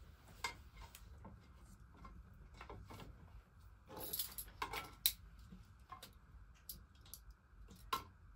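A spatula knocking and scraping lightly against the contact grill's plates and the pressure cooker's pot as grilled chicken pieces are moved across: scattered faint clicks and knocks, a few close together about four to five seconds in and one more near the end.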